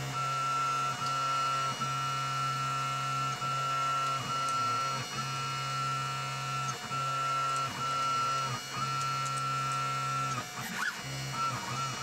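Stepper motors of a DIY CNC machine whining as they drive a hot-wire pyrography tip through a letter. The tones hold steady through each move and dip and glide briefly at each change of direction, roughly once a second. The motion is sped up to double speed.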